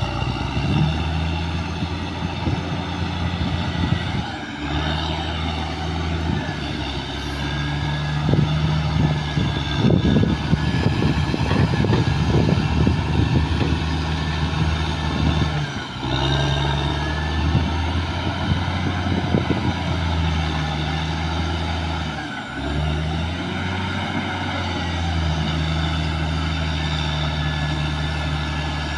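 Caterpillar D6R XL crawler bulldozer's diesel engine running steadily under load, with dense clattering through the middle stretch. The engine note drops briefly a few times.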